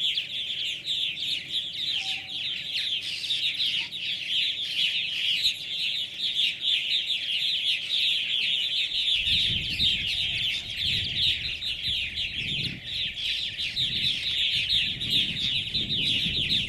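A chorus of many purple martins calling at their colony, a dense, continuous chatter of overlapping calls. A low rumble joins it about halfway through.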